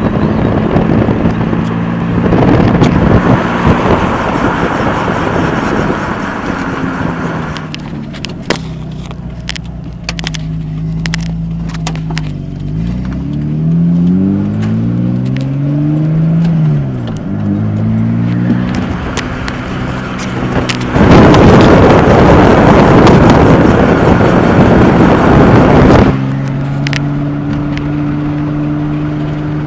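1993 Ford Probe GT with its 2.5-litre V6 running as the car is driven. The engine note rises and falls in pitch near the middle. Two long spells of loud rumbling noise, one early and one about three-quarters through, carry the drone of a bad wheel bearing.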